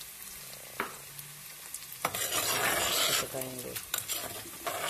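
Boiled chana dal going into hot oil and chicken masala in a clay handi, starting to sizzle loudly about two seconds in. A metal spoon stirs and scrapes it around the pot, with a second burst of sizzling near the end.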